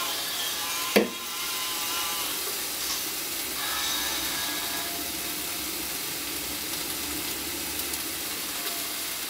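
Food sizzling as it fries in oil in a pan while it is stirred with chopsticks, with one sharp knock about a second in.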